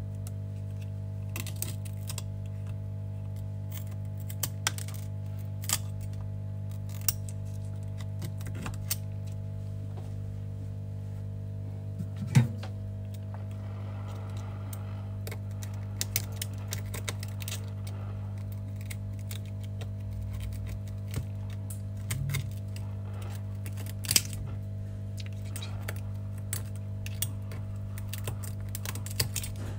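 Scalpel blade scraping and chipping shattered back glass off an iPhone 12 mini: irregular sharp clicks and ticks of blade and glass fragments, a few louder snaps, over a steady low hum.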